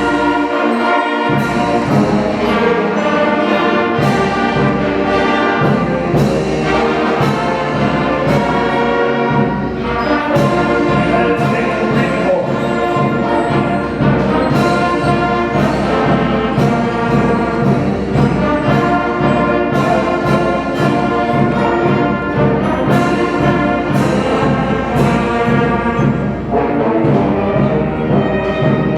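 Middle school concert band playing a march medley of the armed forces service songs, brass carrying the tune over a steady march beat. The band comes in suddenly at the start.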